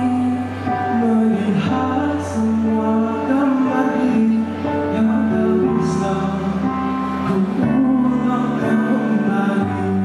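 A man singing a melody into a handheld microphone over instrumental accompaniment with a steady low bass, holding long notes.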